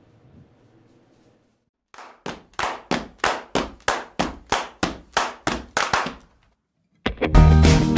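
A regular run of sharp percussive hits, about four a second and growing louder, an intro sting for the show. They stop abruptly, and after a short gap band music with guitar and a heavy beat starts near the end.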